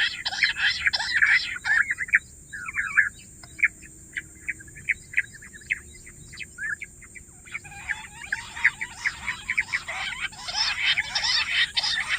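Bush quail calling as a covey: a burst of rapid overlapping chirps at the start, then scattered short notes, then a dense chorus of rapid calls from a little past halfway.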